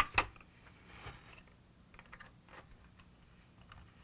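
Screwdriver driving a screw into a plastic toy car body: two sharp clicks right at the start as the tool meets the screw, then faint small clicks and scratches as it is turned.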